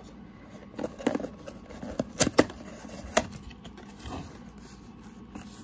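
Cardboard toy box being handled and opened from the bottom: a run of sharp clicks and taps as the flaps are pulled open, loudest about two and a half seconds in.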